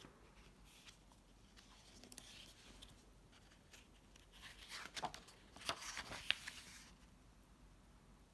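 Hardcover picture book being opened and its pages turned: faint paper rustling about two seconds in, then a louder run of short paper flicks and ticks in the second half.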